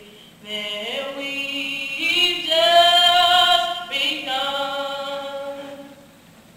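Slow singing of long, held notes, the loudest a high note in the middle; the singing fades out about six seconds in.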